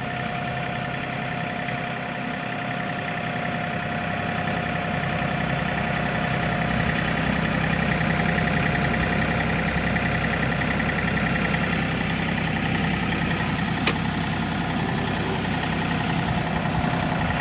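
John Deere tractor engine running steadily, with one sharp click a little over three-quarters of the way through.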